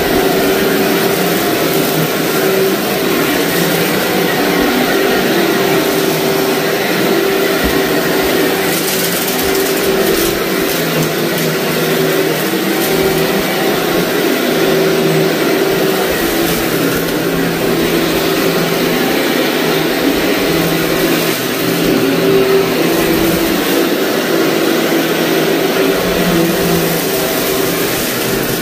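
Upright vacuum cleaner running steadily over a heavily soiled carpet, its motor humming as the brush pulls up crunchy grit and debris, with a few sharper crackles near the middle.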